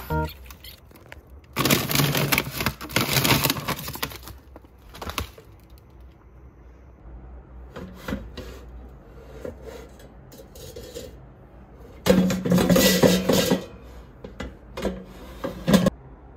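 Air fryer basket being handled while dumplings are loaded: two bouts of rustling and scraping, each two to three seconds long, with scattered knocks and clicks between them.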